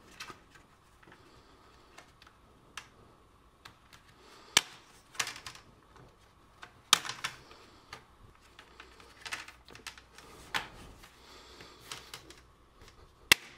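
Plastic clips of a ThinkPad X260's screen bezel snapping loose as fingers pull the bezel up off the display: a series of sharp clicks at irregular intervals, the loudest about four and a half, seven, nine, ten and a half and thirteen seconds in.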